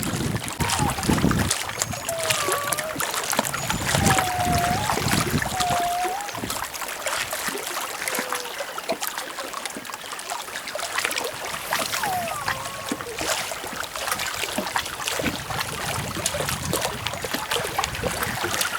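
Lake water lapping and splashing against the shore or boat, with wind, and a few short sliding calls at intervals.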